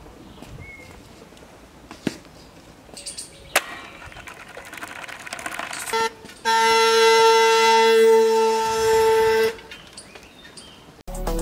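A horn sounds: one short toot about six seconds in, then a long, steady, single-pitched blast of about three seconds. Faint outdoor noise and a few chirps come before it.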